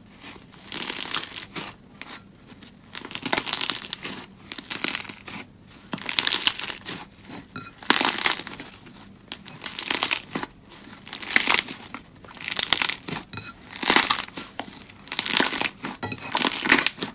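Slime being worked by hand, squeezed and pressed in repeated strokes a little more than once a second, each stroke giving a short noisy burst.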